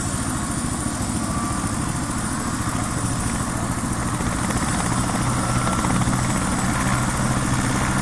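Helicopter running on the ground with its rotor turning: a fast steady rotor beat under a thin high whine, growing louder over the second half.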